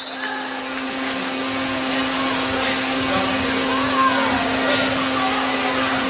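Steady rushing noise with a constant low hum, and faint distant voices coming and going.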